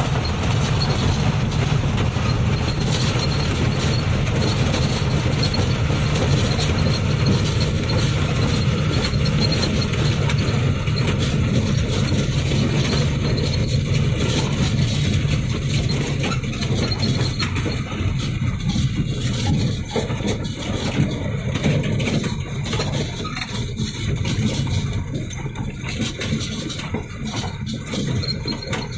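Heavy truck's diesel engine running steadily under load as the empty truck climbs a rough dirt hill road, heard from inside the cab, with knocks and rattles from the bumpy track.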